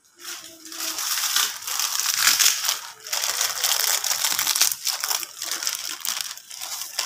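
Plastic instant-noodle packets crinkling and crunching loudly as they are handled.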